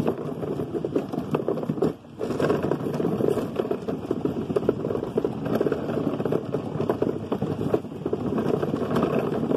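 Hard plastic wheels of a push-along ride-on toy car rolling over a rough concrete path: a steady crackling rattle, broken by a short pause about two seconds in.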